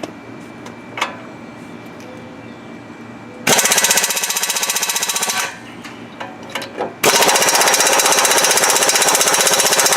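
Impact wrench hammering on a Loctited bolt in two loud bursts, a short one and then a longer one of about three seconds. The bolt does not break loose, so it will need heat from a torch.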